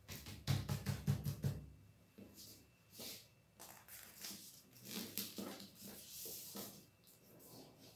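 Stiff paper sheet rustling and rubbing against a tabletop as it is folded and the creases are pressed down by hand. A run of low, rapid thumps comes about half a second in.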